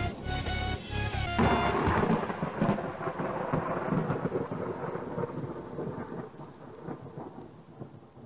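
Music for about the first second and a half, then a loud crack of thunder that rolls on into a long rumble, slowly fading, with rain hissing underneath.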